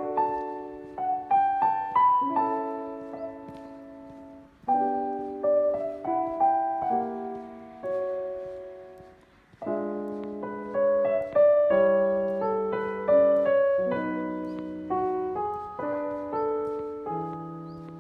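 Background piano music: solo piano playing slow chordal phrases, with a fresh phrase starting about a third and again about half of the way through.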